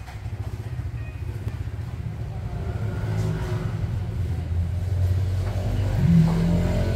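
Low rumble of motor traffic, swelling and growing louder from about three seconds in, with a brief louder engine note near the end.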